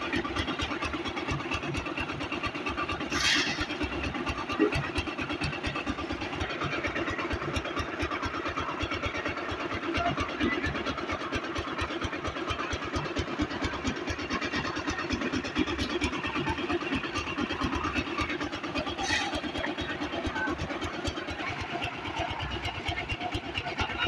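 Concrete mixer's engine running steadily with its drum turning, a fast even beat of firing strokes underneath. Two brief sharp noises cut in, about three seconds in and again near nineteen seconds.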